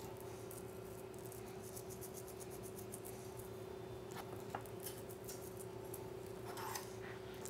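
Quiet kitchen room tone with a steady faint hum, broken by a few faint light clicks as metal tongs handle a seasoned swordfish steak.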